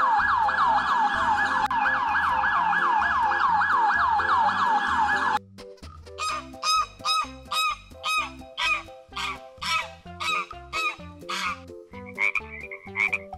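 Toy police vehicle's electronic warbling siren over a tinny electronic toy tune, cutting off suddenly about five seconds in. Then a string of electronic honking calls follows, about two a second, and near the end a toy frog's electronic croaking.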